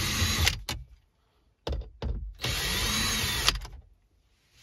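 Bauer cordless drill/driver with a Torx bit backing out dash trim screws: the motor runs and stops about half a second in, gives a brief blip, then runs again for about a second and cuts off sharply.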